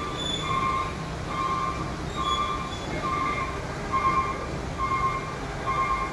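A repeating electronic warning beeper, one short beep a little under every second, over a low steady engine rumble: the kind of alarm fitted to machinery moving heavy loads.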